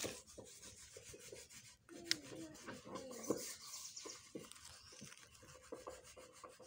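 Faint rustling and rubbing of fingers working through loose soil and leaf mulch while picking small white wild mushrooms, with a few soft clicks.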